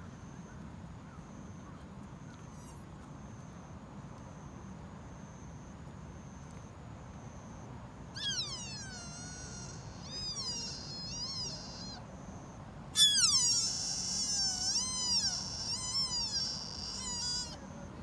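Sika deer fawn calling: a series of high-pitched, wavering bleats that fall in pitch. A short run begins about eight seconds in, then a louder, longer string of calls starts a few seconds later and stops shortly before the end.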